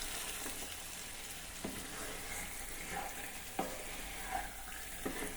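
Naatu kodi (country chicken) curry sizzling in the pan on the lit stove, fully cooked. It is a steady hiss broken by three short knocks of a spoon against the pan as the curry is stirred.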